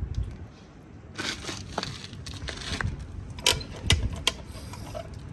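Handling noises from a calf puller and obstetric chains during an assisted calving. Scuffing and rustling, then three sharp clicks a little past halfway, close together.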